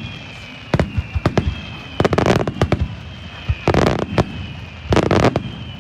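Star mine fireworks barrage: a rapid string of shell bursts and booms, with dense clusters of crackling about two, four and five seconds in.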